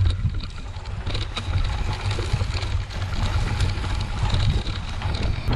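Low rumbling wind noise on the microphone of a mountain bike's handlebar camera while riding a rough, overgrown trail, with scattered ticks and rattles from the bike and grass brushing past.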